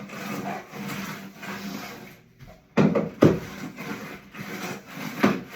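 Manual roller-ball handheld sweeper pushed back and forth over a hard floor: repeated rolling, rasping strokes, with two sharp knocks about three seconds in.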